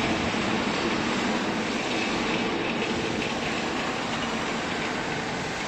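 Steady mechanical running noise of workshop machinery, an even rumble and hiss with no distinct strokes or breaks.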